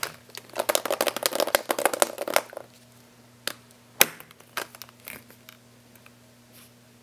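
Hollow plastic toy eggs clattering and knocking against each other as a hand rummages through a pile of them, then a few separate sharp clicks, the loudest about four seconds in, as one plastic egg is handled and snapped open.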